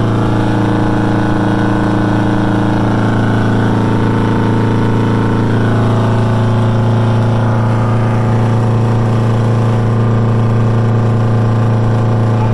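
V8 diesel engine of an old semi tractor, heard from inside the cab while driving, running at steady revs with a constant deep drone.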